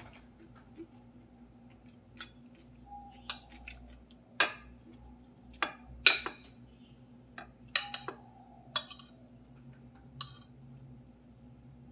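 Metal spoon clinking and scraping on a ceramic plate while scooping fried rice: about a dozen sharp, irregular clinks, the loudest about four and six seconds in.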